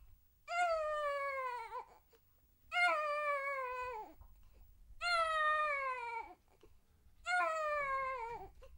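Hungry baby crying: four long wails, each about a second and a half, with the pitch dropping at the end of each, and short pauses for breath between them.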